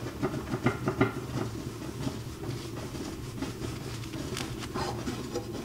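Chef's knife slicing through a block of tempeh, with scattered soft crunches and taps of the blade on a plastic cutting board, bunched in the first second and again near the end, over a low steady hum.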